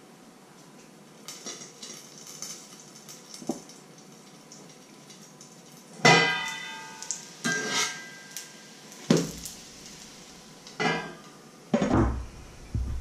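Metal pot lid and utensils clanking against a pan, the strikes ringing briefly. There are faint clinks in the first few seconds, then about five loud clanks in the second half, the loudest about six seconds in.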